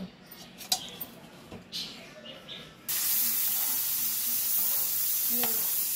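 A few faint taps of a knife cutting rolled dough on a counter, then, about three seconds in, an abrupt cut to a steady loud sizzle of a flour mixture frying in a pan as a spoon stirs it.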